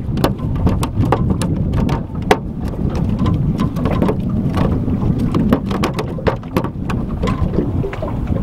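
Steady low rumble of wind on the microphone, with a dense scatter of irregular sharp ticks and taps.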